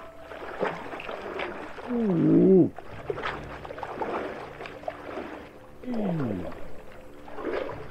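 A man's wordless cries of cold shock as he wades into a chilly mountain lake: a loud rising-then-falling 'oooh' about two seconds in and a shorter falling groan about six seconds in, with water sloshing around his legs as he walks.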